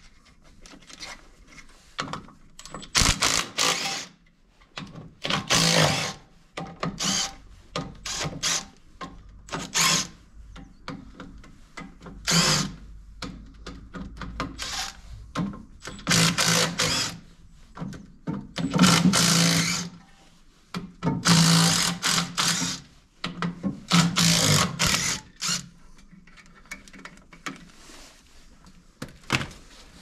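Cordless impact wrench running in about a dozen short bursts of a second or less, undoing the bolts that hold a Deutz DX 90 tractor's clutch assembly to the flywheel. There are quieter knocks of metal handling between the bursts.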